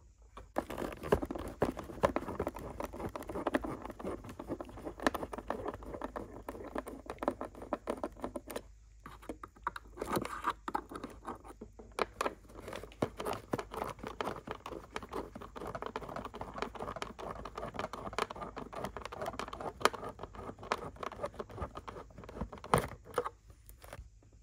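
A model car being unscrewed from its cardboard display base: a screwdriver scraping and clicking in the screw hole under the base, while the box's cardboard and plastic tray rub and crinkle as they are handled. Sharp clicks stand out now and then, with a short lull about nine seconds in.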